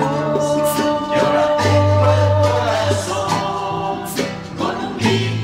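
Christian worship song: voices holding long notes over sustained bass notes, with light cymbal strokes in the accompaniment.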